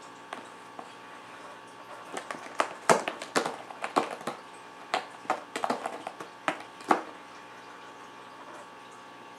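A cat playing with a toy: irregular sharp clicks and knocks, bunched between about two and seven seconds in, over a steady background hum.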